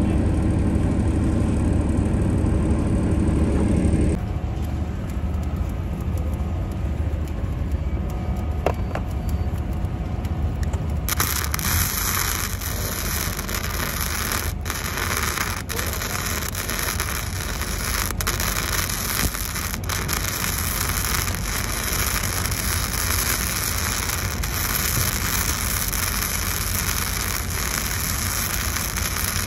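Electric welding arc crackling and sizzling steadily as a flat-position pass is run on steel plate, setting in about a third of the way through. Before it, a low steady rumble.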